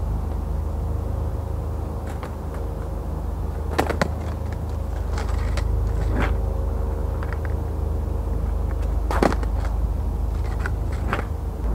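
Skateboard clacking on asphalt during freestyle tricks: a few sharp knocks of the board's tail and wheels hitting the ground, a quick pair about four seconds in and the loudest one about nine seconds in, over a steady low rumble.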